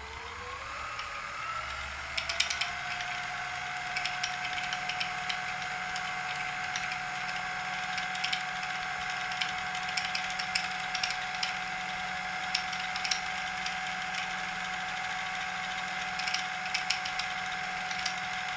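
Kenmore 158.1040 sewing machine's motor running the bobbin winder, with the hand-wheel clutch loosened so only the winder turns. It is a whine that rises in pitch over the first two seconds or so as the motor comes up to speed, then holds steady, with light irregular ticks over it.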